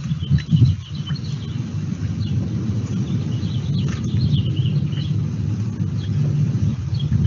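Outdoor ambience: a steady low rumble with birds chirping now and then, and a few louder low bumps about half a second in.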